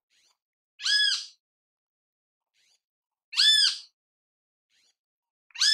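Great kiskadee calling: three single notes about two and a half seconds apart, each rising then falling in pitch. The last one comes right at the end.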